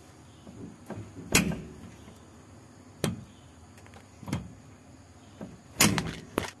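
Sharp metallic clanks and clicks of a spanner on the propeller shaft's flange bolts, the bolts being undone: four loud knocks a second or so apart with smaller clicks between, the loudest near the end.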